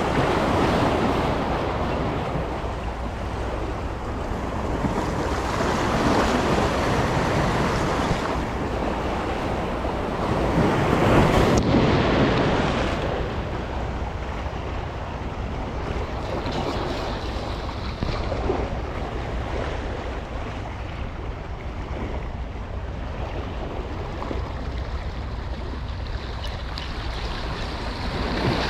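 Sea waves washing against shore rocks, swelling and easing several times, loudest about eleven seconds in, over a steady low rumble of wind on the microphone.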